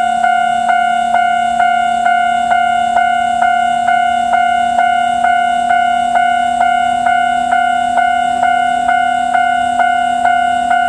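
Japanese railway level-crossing warning bell ringing, a rapid, even clang of about two strokes a second.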